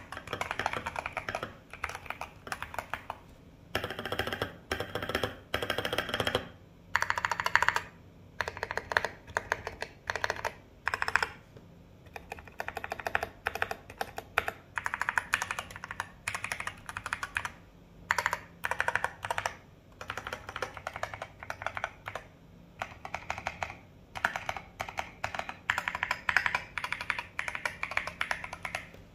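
Typing on a mechanical keyboard with stock Kailh Polia tactile switches and Akko ASA Retro Carbon keycaps in a Fanoe kit: a thocky keystroke sound in quick runs with short pauses and a few louder single strokes.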